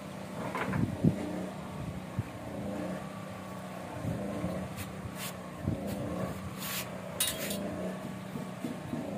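Scattered knocks and light metallic clinks from work at a boat's engine bed, over a steady low motor hum.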